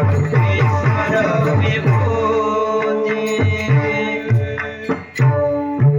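Instrumental passage of Marathi devotional bhajan music: rapid hand-drum strokes, each one falling in pitch, over steady held notes of an accompanying instrument. The drumming pauses about two seconds in, then comes back in quicker bursts.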